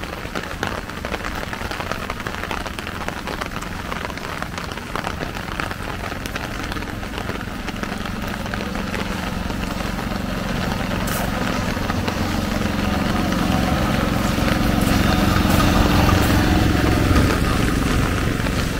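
Steady rain falling and pattering on surfaces. About halfway through a low rumble builds under it and is loudest near the end.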